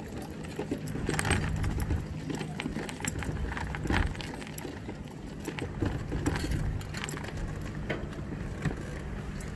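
Mobility scooter rolling along a wooden pier deck: a steady low motor hum under the rattle and clatter of the wheels and front basket over the boards, loudest about a second in and again around four seconds.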